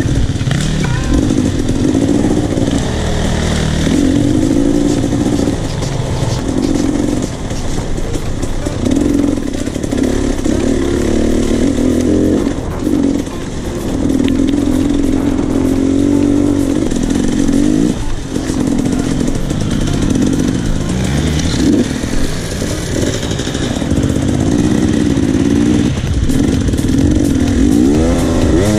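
Enduro dirt bike engine running as the bike is ridden on a trail. Its pitch rises and falls every few seconds as the throttle is opened and eased off, with brief dips between pulls.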